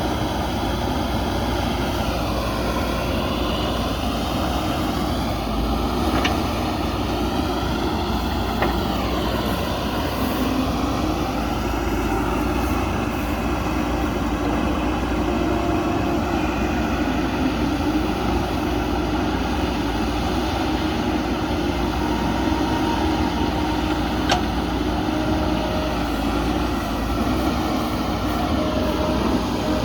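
Diesel engine of a JCB backhoe loader running steadily at work, with a high whine that wavers up and down over the first ten seconds or so. Two brief sharp clicks stand out, one early and one near the end.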